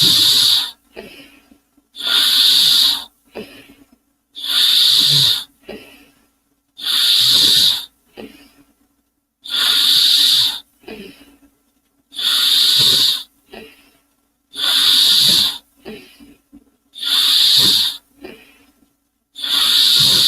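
Steam-engine imitation: long hissing puffs of about a second each, repeating in a steady rhythm about every two and a half seconds, with short fainter puffs between them.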